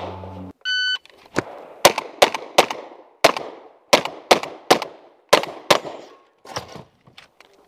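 A shot timer's electronic start beep, then a rapid string of about a dozen gunshots from a shotgun and a pistol at a 3-gun stage, each a sharp crack with a short echo, spaced about a third to half a second apart.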